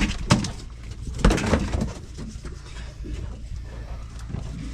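Knocks and thuds from tuna being handled on a fishing boat while their gills are taken out: a sharp knock just after the start, then a heavier run of thuds about a second later, over a steady low rumble.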